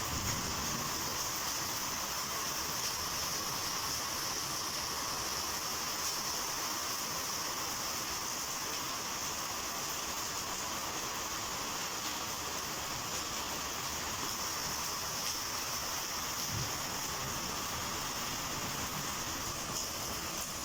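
Heavy rainstorm with strong wind: a steady rushing hiss that does not let up.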